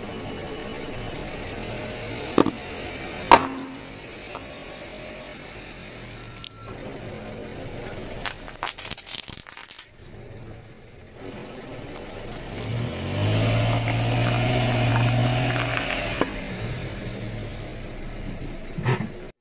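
A car tyre rolling slowly over small objects on concrete: a few sharp pops, then a quick run of crackling, then the car's engine running with a low hum for a few seconds, and one sharp crack near the end.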